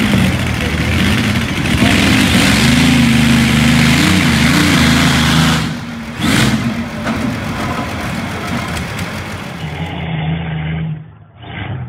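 Allison V-1710 V12 aircraft engine in a pulling tractor revving hard, its pitch wavering. A little before six seconds in it comes off throttle with a short sharp burst, then runs on lower. Near the end the sound cuts to a thinner recording.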